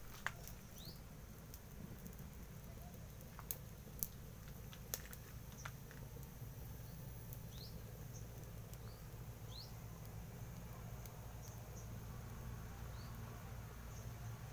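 Firewood burning in a cast-cement wood stove, with a few sharp crackles in the first five seconds over a low steady rumble. Faint short high chirps recur every second or two.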